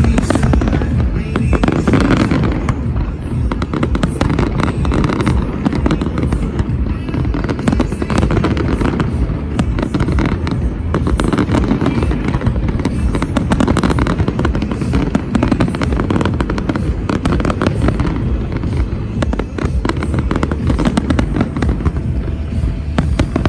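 Fireworks display going off continuously: dense cracks, bangs and crackling over a steady low rumble, with music playing underneath.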